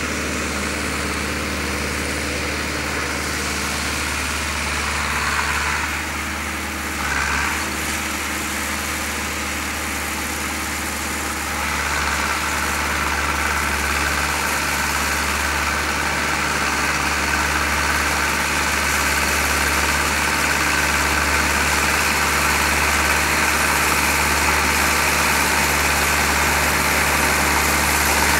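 Farm tractor engine running steadily while it pulls a plough through the field, getting louder from about twelve seconds in as the tractor comes closer.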